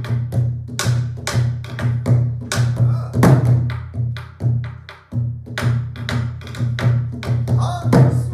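Ensemble of Korean buk barrel drums played together: rapid stick strikes on the drumheads and wooden shells in a driving, even rhythm, with a short break about five seconds in before the drumming comes back in.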